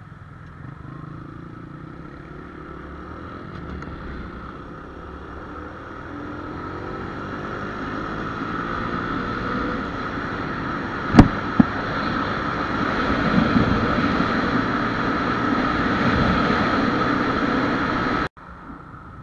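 Honda Wave 125X's single-cylinder four-stroke engine pulling away and accelerating, its note rising in pitch, with wind noise growing louder as speed builds. Two sharp clicks about eleven seconds in, and the sound cuts off suddenly near the end.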